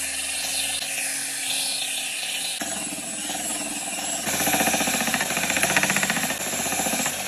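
Belt sharpener running with an axe's steel edge pressed against its abrasive belt, a steady grinding hiss. The sound changes abruptly a few times, and in the last three seconds it takes on a fast, even rasping pulse.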